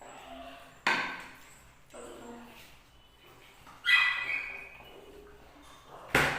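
A pet dog barking: three sharp barks, about a second in, about four seconds in and near the end.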